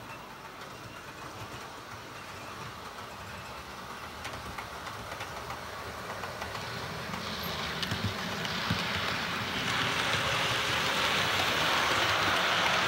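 OO gauge model train, a locomotive hauling coaches, running along the layout's track with a steady whirring hiss from its motor and wheels, growing louder as it approaches, with a few faint clicks.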